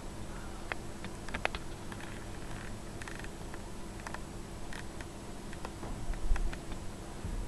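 Ragdoll kittens scrabbling and pawing on sofa upholstery and a sheet: scattered light clicks, scratches and rustles, with a dull low thump about six seconds in.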